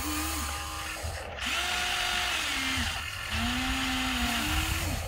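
Electric motors of a Huina remote-control toy excavator whining as its boom and bucket move. Each movement is a whine that rises and then falls in pitch, several times over, above a steady low hum.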